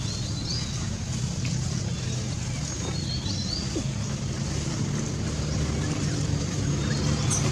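A steady low motor rumble, growing slightly louder toward the end, with a few faint high chirps about three seconds in.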